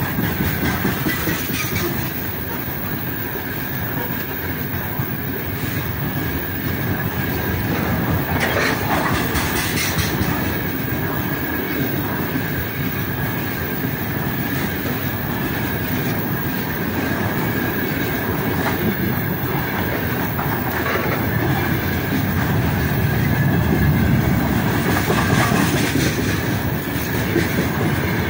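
Freight train's open-top gondola wagons rolling past close by: steel wheels on rail making a steady low rumble with a few sharp clacks, over a steady high whine.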